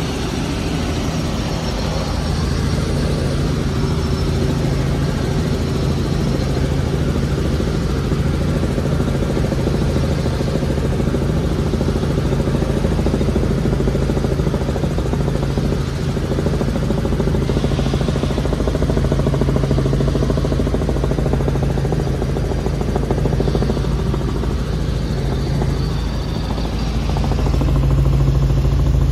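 Helicopter in flight heard from inside the cabin: a steady drone of engine and rotor with a low hum, rising slightly near the end.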